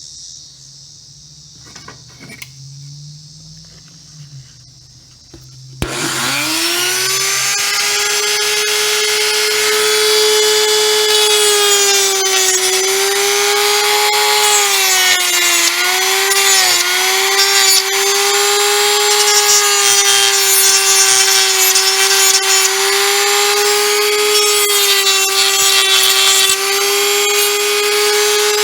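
A Dremel rotary tool switched on about six seconds in, spinning up quickly to a steady high whine and sanding down a plastic switch insert. Its pitch sags briefly a few times as it is pressed into the plastic.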